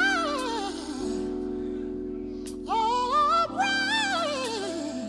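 A soul singer's wordless melismatic runs with heavy vibrato, twice sweeping up and then sliding down in pitch, over held accompaniment chords that change about a second in and again past the middle.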